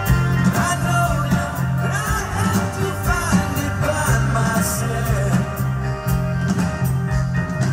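A live rock band playing with lead and backing singing over drums, guitars and keyboards, heard through the PA from within an outdoor crowd.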